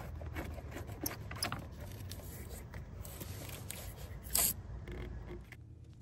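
Small scrapes, clicks and rustles of hand work at a car battery's side-post terminal as the negative cable is worked off and tucked aside, with one louder rustle about four and a half seconds in.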